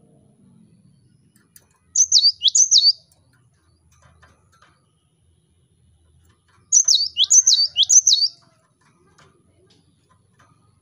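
Cinereous tit singing. It gives two short bursts of its high, sharp, quickly repeated notes, each note falling steeply. The first burst comes about two seconds in and the second about seven seconds in.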